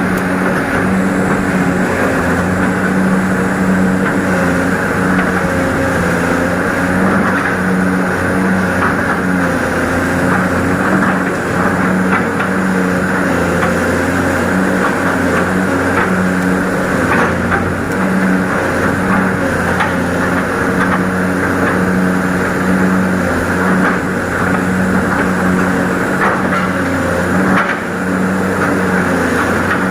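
Excavator engine running steadily at a constant pitch, with a few short knocks in the middle.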